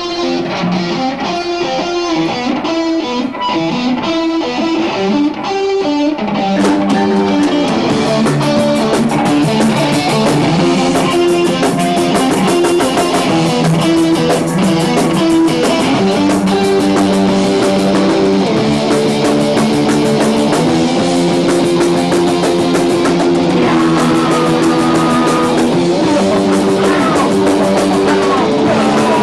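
A rock band playing live, led by electric guitar. The first few seconds are mostly guitar notes, then the drums and cymbals come in about six seconds in and the full band plays on steadily.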